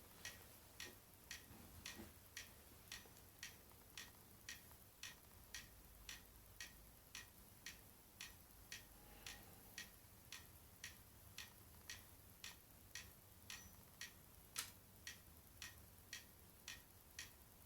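Faint, regular ticking, about two ticks a second, steady throughout, over near-silent room tone.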